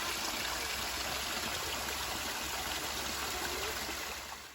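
Small man-made waterfall running low, its water trickling and splashing over the edge in a steady rush that fades out just before the end.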